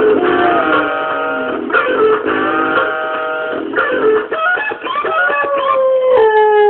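A Dalmatian howls along to plucked guitar music, long wavering howls that slide in pitch, the last one falling and held near the end.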